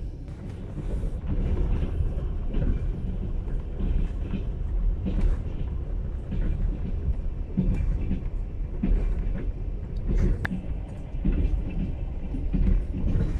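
Passenger train running: a steady low rumble with scattered short knocks and rattles.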